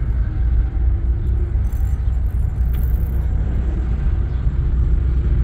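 Steady low rumble of a car in motion, engine and road noise with no distinct events.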